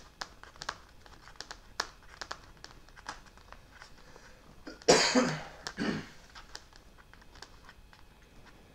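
Scattered light clicks and taps of hands working small control-horn hardware on a foam RC flying wing, with a man's cough about five seconds in, the loudest sound.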